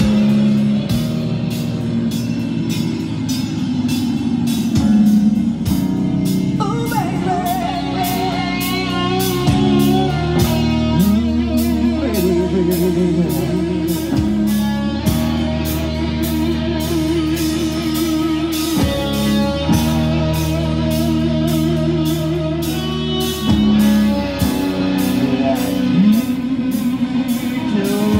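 Rock band playing: electric guitar chords over a steady drum-kit beat.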